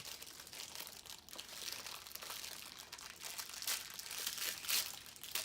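Plastic toy packaging crinkling and rustling as it is handled and pulled open, with a few louder crackles near the end.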